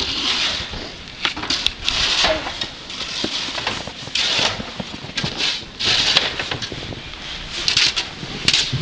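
Snow crunching and scraping in about a dozen short, irregularly spaced hissing bursts.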